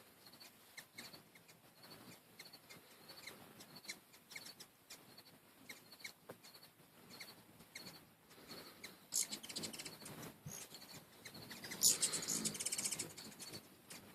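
Hummingbirds at a feeder giving faint, repeated high chips, with two louder bursts of rapid chattering about nine and twelve seconds in.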